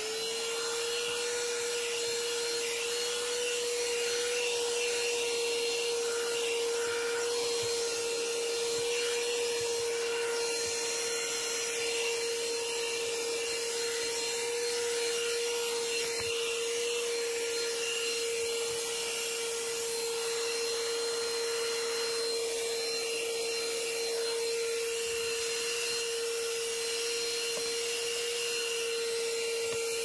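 Ryobi P713 18-volt cordless handheld vacuum running steadily with its wide nozzle attachment, picking debris off car floor carpet: a constant motor whine over a rushing hiss of air.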